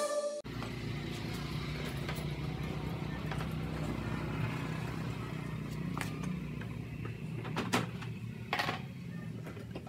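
A few sharp clicks and knocks from hands working on a scooter's plastic body panels, about six, seven-and-a-half and eight-and-a-half seconds in, over a steady low hum.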